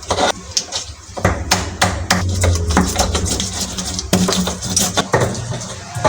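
Kitchen utensils knocking and clattering: a quick, irregular series of sharp knocks, like a spoon or spatula striking a pan, or chopping.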